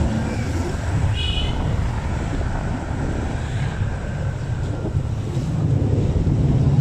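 Motorcycle engine running and road noise, heard from the rider's seat while riding slowly, with wind on the microphone. A brief high-pitched tone sounds about a second in, and the rumble grows a little louder near the end.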